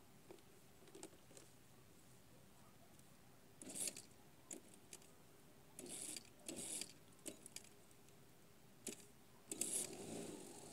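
Mostly quiet, with short scattered rustles and clicks; the louder ones come about four seconds in, twice between six and seven seconds, and again near the end.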